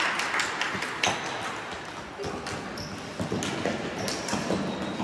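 Floorball game play in a large sports hall: plastic sticks clicking against the ball and each other in a quick irregular patter, with a few short high squeaks and hall echo.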